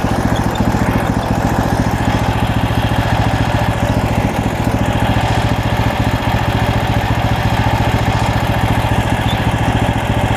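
MechMaxx SM32 portable bandsaw sawmill's gasoline engine running steadily with an even, rapid firing beat.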